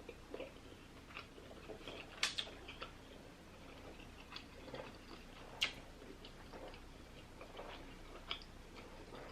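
Faint close-up chewing of a mouthful of lobster tail meat: soft wet smacking and small clicks, with two sharper clicks about two seconds and five and a half seconds in.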